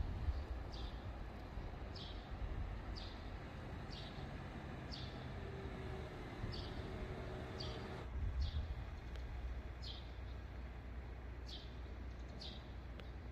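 A bird calling over and over: a short, high chirp sweeping downward, about once a second. Under it runs a steady low rumble that swells briefly near the start and again about eight seconds in.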